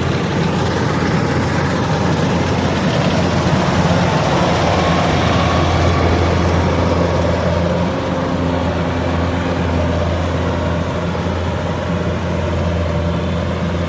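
Kubota DC-105X combine harvester's diesel engine running steadily as it harvests rice, with a constant low drone.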